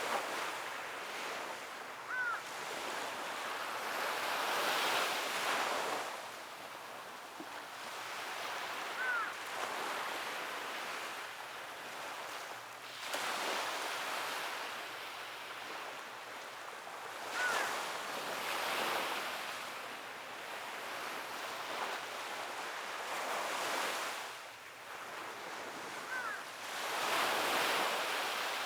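Sea waves breaking and washing up a shore, the surf swelling and falling away every several seconds.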